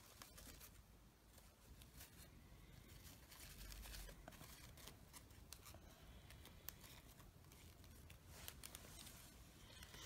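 Near silence with faint rustling and small clicks of hands handling fabric rose petals and wrapping thread around the flower's base.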